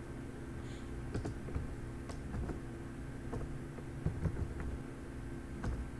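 Typing on a computer keyboard: a scattered, irregular run of keystroke clicks over a steady low hum.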